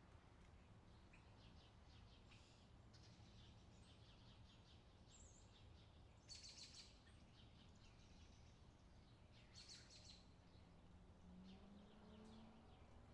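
Near silence with a low steady hum, and faint high bird chirps now and then, the loudest cluster about halfway through.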